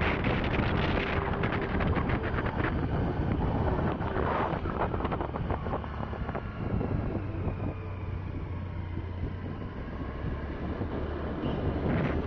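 Wind buffeting the microphone over the steady engine and road noise of a vehicle driving along a road.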